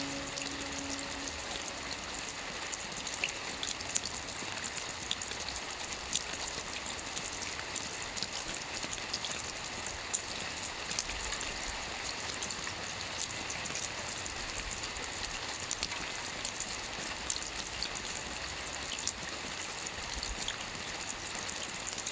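Steady rain with scattered individual drops ticking on a surface.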